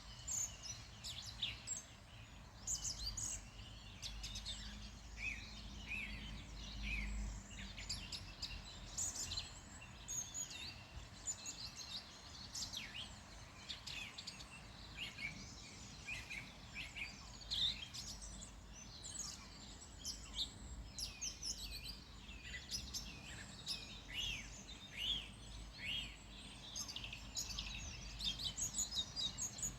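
Many small birds chirping and singing in a dense, overlapping chorus of short high calls, over a steady low background rumble.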